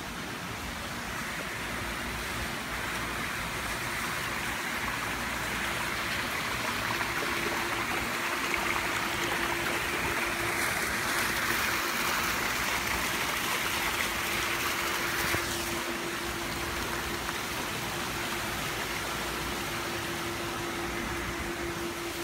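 Water splashing from a small fountain's several bubbling jets, a steady rush that swells as it grows nearer and stops abruptly about two-thirds of the way through. A steady low hum runs beneath it.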